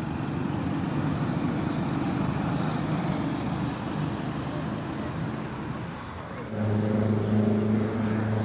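Go-kart engines running on the track, a steady engine hum; about six and a half seconds in a louder, steady engine note comes in and holds.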